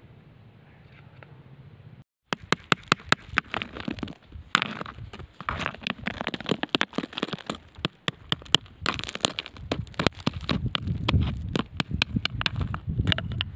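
Stones and gravel clicking, knocking and crunching as stones are dug out and handled, a rapid, uneven run of sharp stony clicks that starts about two seconds in after a faint hiss.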